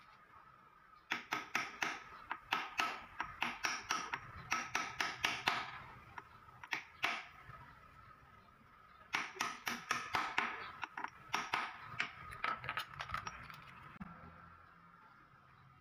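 Hammer striking steel to drive a bearing in a Kawasaki KLX150 rear suspension linkage: quick runs of metal-on-metal taps, about four or five a second, with a ringing metallic tone. There are two long runs with a short pause between, and the taps stop near the end.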